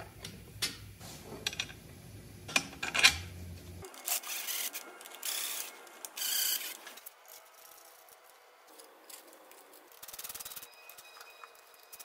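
Metal clicks and clinks as an aluminium engine plate is fitted by hand. From about four seconds in, a cordless driver spins bolts in with three short raspy bursts, then one fainter burst at about ten seconds.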